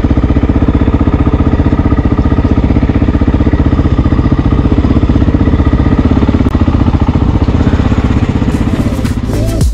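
Air-cooled single-cylinder Honda XR dual-sport motorcycle engine running at low speed, a steady, even beat of exhaust pulses. Music starts to come in near the end.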